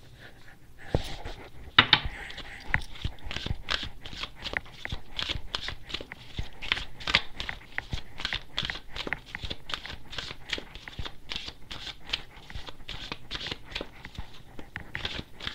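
A deck of oracle cards being shuffled by hand: a rapid, uneven run of short card clicks that starts about a second in and keeps going, with one sharper snap near two seconds in.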